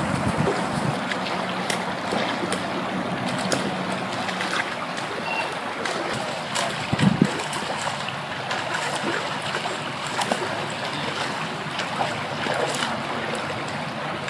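Steady rush of flowing water from an icy creek, with wind buffeting the microphone, scattered small clicks, and a dull thump about seven seconds in.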